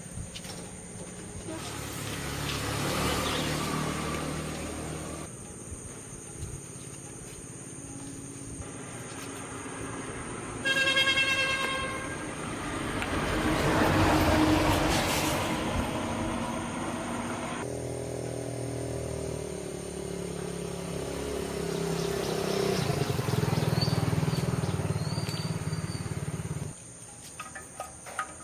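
Vehicle engines running, swelling and fading several times as they rev or pass, with one short horn blast about eleven seconds in.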